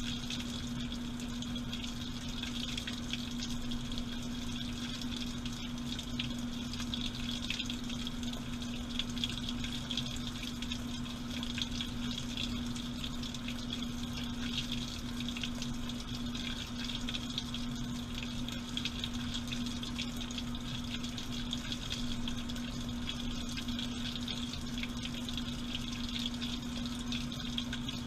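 Washing machine running with water, heard from inside the drum: a steady hum under continuous rushing, splashing water, unchanging throughout.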